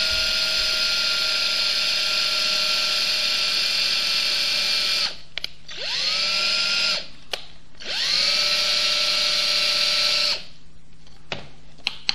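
Electric drill boring a small hole straight down into a wooden dowel rod. The motor whine runs steadily, stops about five seconds in, then is started twice more, each time winding up to speed, and cuts off about ten seconds in, leaving a few faint clicks.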